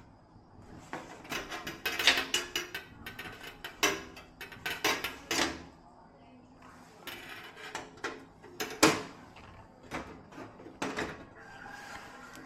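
Irregular clicks, knocks and scrapes of hard objects being handled, with a sharp knock about nine seconds in.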